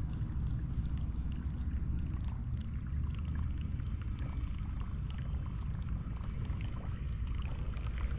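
Water lapping against a small boat's hull over a steady low rumble, with faint small ticks.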